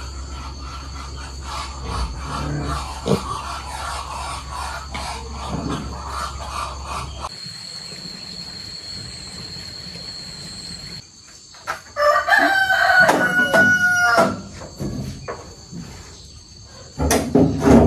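A rooster crowing once, a long call about halfway through, over steady farmyard background noise.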